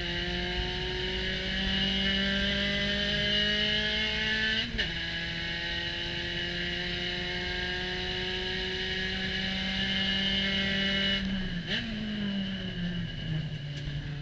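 Spec Racer Ford Gen3's four-cylinder engine heard from the cockpit under full throttle, rising in pitch. The pitch drops suddenly at an upshift about 4.7 s in and climbs again. Near the end the driver lifts off, the revs fall, and a quick blip of revs marks a downshift for the corner, all over steady wind rush.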